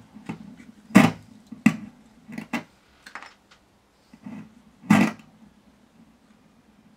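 Scratchy crackles and pops from a Van der Molen amplifier as a noisy potentiometer is worked, a handful of irregular bursts over a faint steady mains hum: the sign of a dirty, worn pot track.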